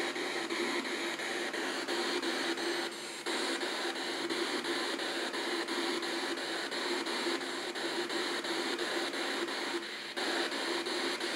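P-SB7 Spirit Box radio sweeping up the FM band, giving a steady hiss of static chopped several times a second as it jumps from frequency to frequency, with a steady underlying hum. It plays through a small portable speaker wired to the box.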